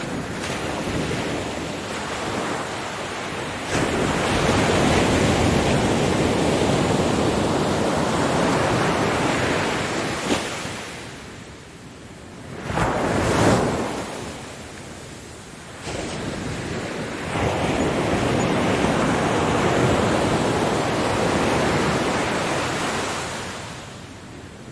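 Ocean surf: waves breaking and rushing up the shore, swelling into loud surges of several seconds each and then falling back.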